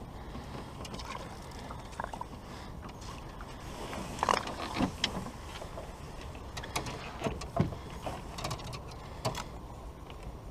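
Water lapping against a small boat, with a string of short splashes and knocks as a hooked squid is drawn to the surface and scooped into a landing net. The loudest splashes come about four to five seconds in and again a few seconds later.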